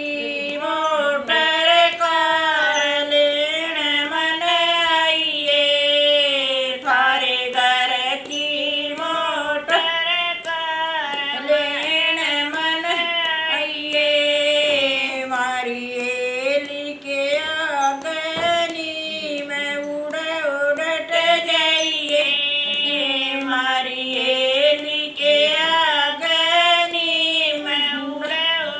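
Two women singing a song together without instruments: one continuous melody of long, wavering held notes.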